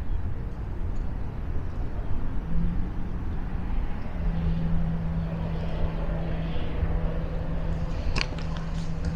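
A motor running with a steady hum over a low outdoor rumble, with a couple of sharp clicks near the end.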